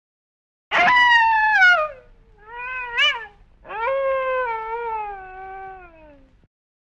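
Wolf howling, three calls in a row. The first howl falls in pitch, the second is short and rises then falls, and the third is longer, sliding down in pitch and fading out.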